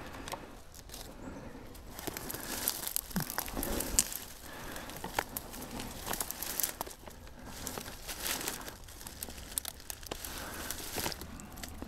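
Dry fallen leaves and dead ferns rustling and crinkling underfoot, with many small crackles and snaps of twigs as someone shifts and steps through the undergrowth.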